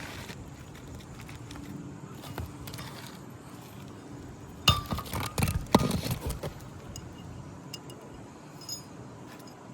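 A cluster of sharp clinks and knocks just past halfway, one with a short ringing note, from hand tools working on asphalt roof shingles, with faint scraping around them.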